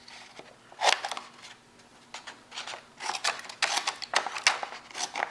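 Small scissors on a 91 mm Victorinox Swiss Army knife snipping, as a series of short sharp clicks: one about a second in, then a quicker run over the last couple of seconds.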